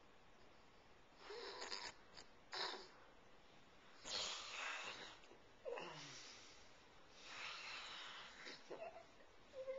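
A sleeping man snoring: about four wheezy, breathy snores at irregular intervals, one trailing off in a short falling tone.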